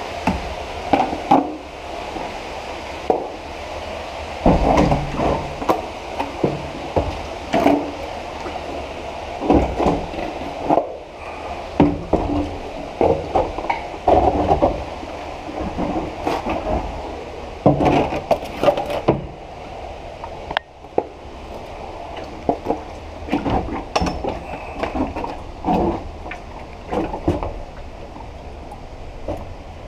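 Kayak paddle and hull knocking and scraping against the stone walls of a narrow tunnel as the kayak is pushed backwards by hand, with irregular knocks and scrapes.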